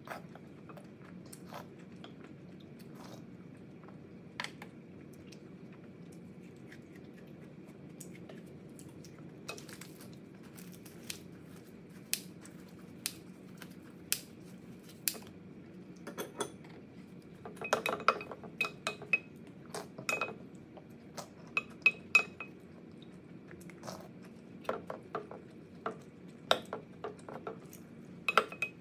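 Eating sounds: chewing, with a wooden spoon and other utensils clinking and knocking against a glass bowl in scattered sharp clicks, sparse at first and coming more often in the second half.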